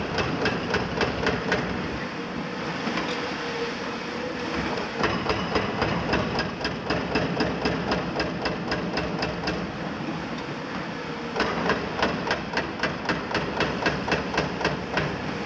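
Hydraulic breaker on an excavator hammering concrete in three runs of rapid, even blows, about five a second: one at the start, one in the middle and one near the end. Excavator diesel engines run steadily underneath.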